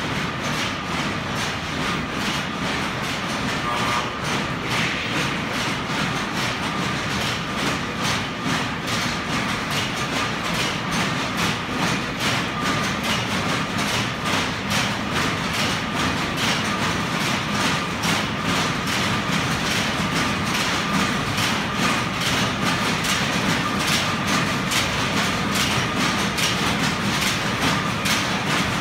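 Rows of belt-driven power looms in a cotton-mill weave room running together: a loud, continuous, rapid mechanical clatter of many looms beating at once.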